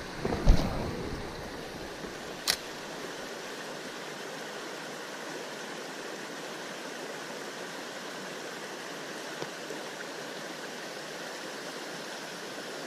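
Creek water running steadily, with a few low knocks about half a second in and one sharp click about two and a half seconds in.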